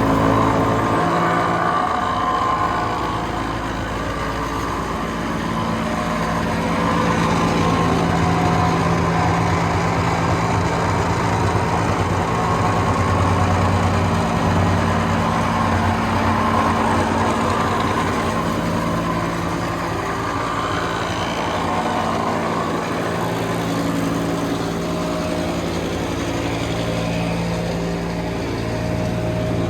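Diesel engine of a Vögele Super 1800-3i asphalt paver running steadily.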